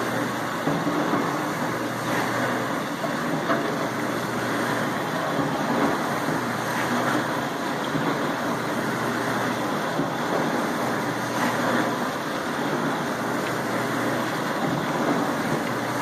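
Whirlpool dishwasher running a wash cycle: a steady rush of water spraying inside the closed tub over a low, steady hum from the wash pump motor.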